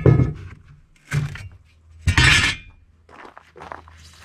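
Clattering knocks of loose trim strips and frame pieces being handled during an RV floor teardown: three loud clatters, the loudest and longest about two seconds in, then lighter clicks, with a low steady hum underneath.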